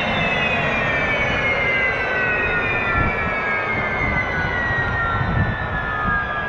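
Unlimited hydroplane's Lycoming T55 turbine winding down, its whine falling steadily in pitch as the boat slows, over rushing and slapping water against the hull.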